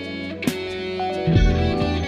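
Background music led by guitar, with bass notes and occasional drum hits.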